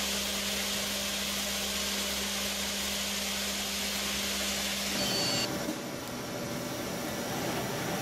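Mazak Multiplex 4200 CNC lathe running, a steady machine hum with a high hiss. About five seconds in, the hum and hiss cut off with a brief high tone, and a rougher, lower-pitched mechanical noise carries on.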